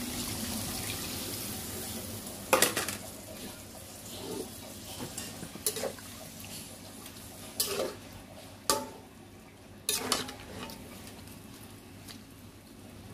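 Water poured into a hot karahi of beef liver in fried spice paste, hissing steadily and fading over the first couple of seconds; then a metal spatula stirring the liver, scraping and knocking against the pan about half a dozen times as the curry begins to simmer.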